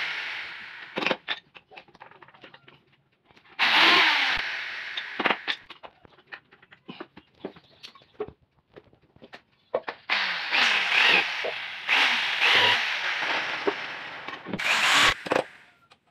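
Electric drill boring holes into teak boards in several runs, its motor pitch sliding down as the bit bites into the wood, with short knocks in between.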